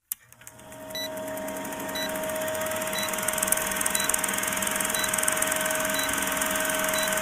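Vintage film countdown sound effect: a film projector's steady clatter and hiss, fading in over the first second, with a short high beep about once a second as the numbers count down.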